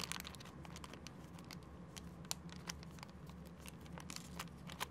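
A thin clear plastic zip bag crinkling as it is handled, heard as faint, scattered crackles.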